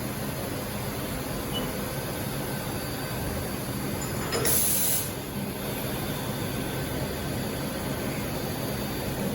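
Steady machinery hum with a short, sharp hiss of air about four and a half seconds in.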